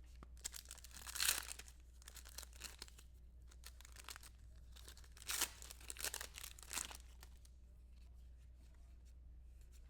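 Faint rustling and crinkling of trading cards and their pack wrapper being handled, with a few short louder scrapes about a second in and between five and seven seconds in. A low steady hum runs underneath.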